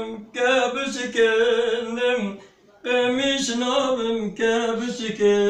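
Male voice singing unaccompanied, holding long notes that waver and step between pitches, with a short breath pause about two and a half seconds in.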